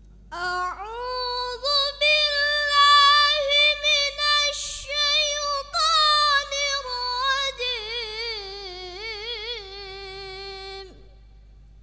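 A boy's voice reciting the Qur'an in the melodic tilawah style, drawn out in long held notes. Near the end the notes waver in quick ornaments, and the voice cuts off about eleven seconds in.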